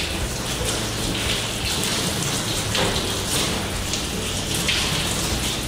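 Water from a hand-held hose sprayer splashing over a wet golden retriever's coat and pattering onto the grated floor of a stainless steel dog-wash tub, a steady spattering.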